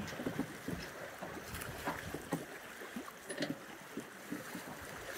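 Water rushing and splashing along a sailboat's hull as it sails through chop, with irregular small splashes over a steady hiss and wind on the microphone.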